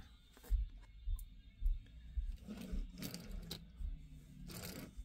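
Handling noises: several soft low thumps in the first few seconds, then scraping and rustling.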